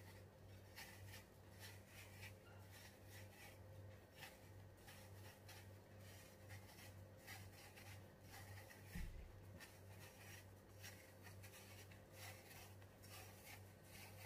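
Faint scraping of a small kitchen knife paring the skin off an apple, in a run of short repeated strokes over a steady low hum. A soft bump about nine seconds in.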